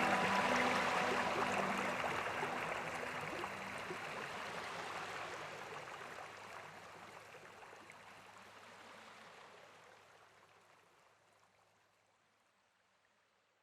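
Rushing waterfall water, a steady hiss that fades out evenly to silence about twelve seconds in. The last of a soft music track fades away in the first second.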